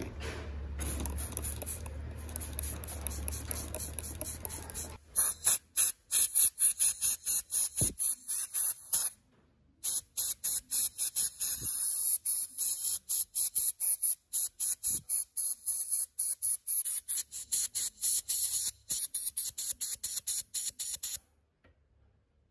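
A low hum for the first few seconds, then short, rapid puffs of compressed air from a metal blow nozzle, about three or four hissing puffs a second, drying the wet watch movement. The puffs pause briefly near the middle and stop near the end.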